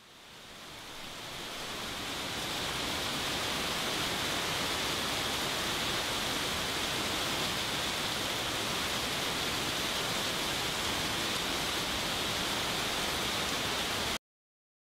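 A steady, even rushing noise, like running water or hiss, that fades in over the first two seconds and cuts off abruptly about 14 seconds in.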